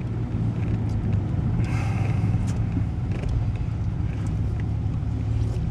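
Steady low drone of a vehicle's engine and road noise from inside the cab while driving, with a few faint ticks and rattles.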